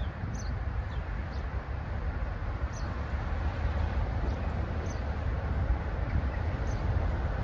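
Diesel locomotive hauling coaches on approach, its engine rumble slowly growing louder. A small bird chirps short falling notes every second or two over it.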